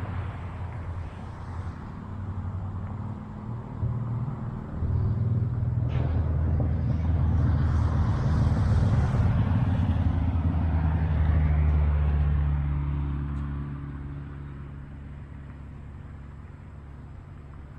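A nearby engine running with a low rumble, growing louder about five seconds in and fading away after about twelve seconds.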